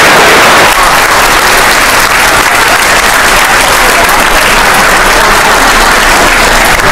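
Loud audience applause, a dense, steady clapping from a full hall.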